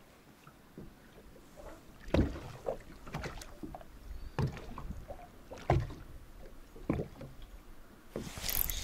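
Small boat rocking at sea: water slapping and knocking against the hull in several irregular low thumps.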